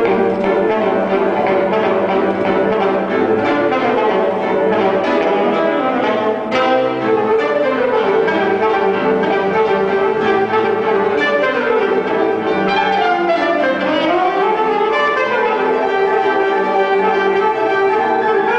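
Alto saxophone and grand piano playing a lively rag together. About two-thirds through, the saxophone swoops down in pitch and back up.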